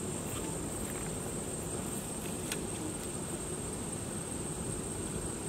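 Steady high-pitched insect drone over a low outdoor rumble, with a single faint click about two and a half seconds in.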